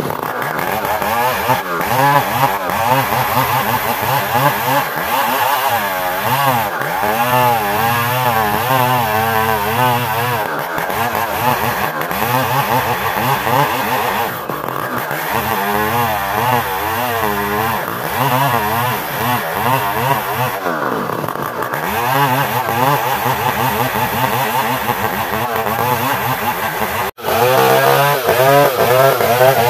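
Chainsaw with a new chain ripping lengthwise through an ironwood (ulin) log, the engine running under load, its pitch wavering up and down as it cuts. There is a sudden brief break near the end, and then the saw runs on.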